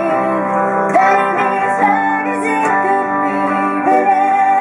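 A woman singing a country song live, with a guitar strummed along under her voice.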